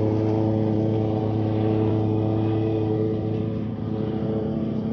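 Petrol walk-behind lawn mower engine running steadily, with a brief small dip in level late on.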